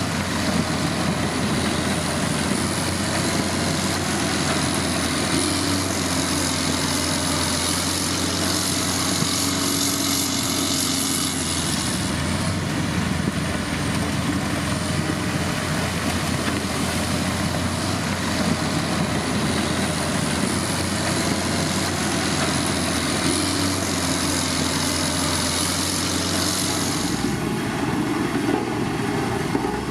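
Heavy diesel earthmoving machine engine running steadily, with a thin high whine over it that wavers slightly and drops away near the end.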